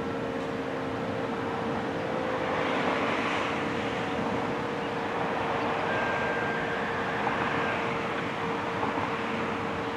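ACA Hurricane 130 MKII outdoor warning siren sounding a steady tone, with a broad rush that swells about three seconds in.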